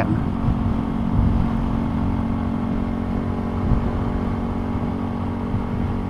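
Honda Grom's 125 cc single-cylinder engine running at a steady cruise, a constant hum, with the low rumble of wind buffeting the microphone in high winds.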